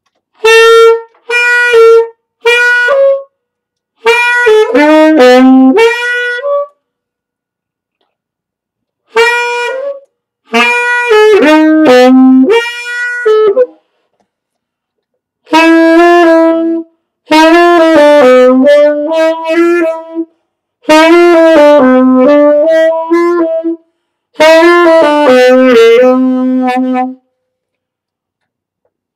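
Mendini tenor saxophone being played in short phrases of a few notes each. The phrases last one to three seconds, with silent pauses between them, as a player used to the smaller alto tries out the new tenor.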